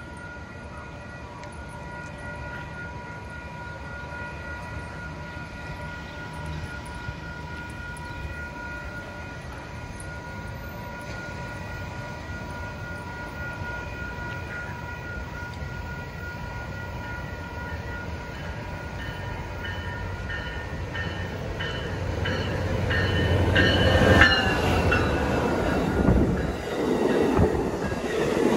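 Amtrak Pacific Surfliner train led by a Siemens SC-44 Charger diesel-electric locomotive approaching and passing close by. It is heard first as a steady whine of high tones, then as a rumble that builds and peaks about 24 seconds in as the locomotive goes by, then as the rolling noise of the bi-level passenger cars.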